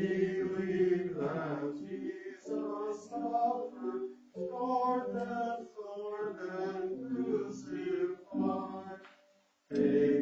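Small church choir singing a chant, phrase by phrase with brief pauses between the phrases.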